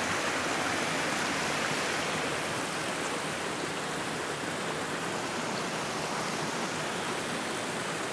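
Rushing stream: a steady, even rush of flowing water.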